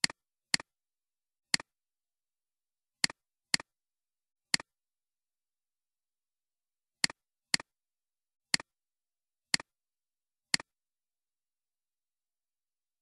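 Computer mouse clicks, eleven in all, each a quick press-and-release double click. They come irregularly with a pause of about two and a half seconds near the middle, and there is dead silence between them.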